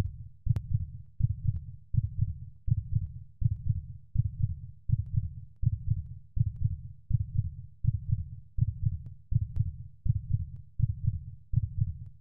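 Heartbeat sound effect for suspense: steady low double thumps, about one and a half per second.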